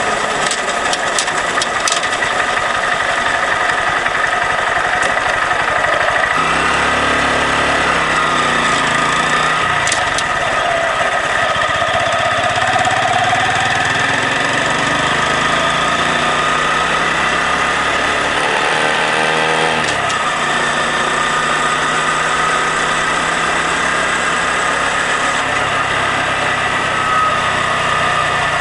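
Honda Grom's small single-cylinder engine running while riding, mixed with wind noise. The engine pitch shifts about six seconds in and again near twenty seconds in.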